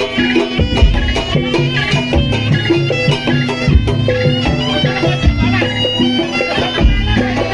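Live jaranan (kuda lumping) ensemble music: a shrill reed pipe carries a wavering melody over held low tones, with drums beating steadily through it.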